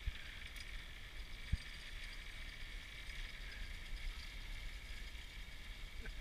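Outdoor ambience: a steady, unchanging high-pitched buzz over a faint low rumble, with a single short knock about a second and a half in.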